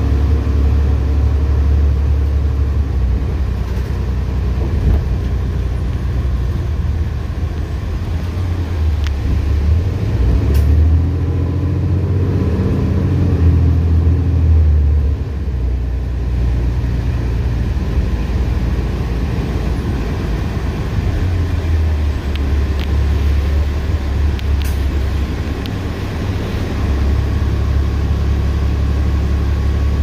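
Road vehicle running: a steady low rumble, with its engine note swelling and bending in pitch around the middle.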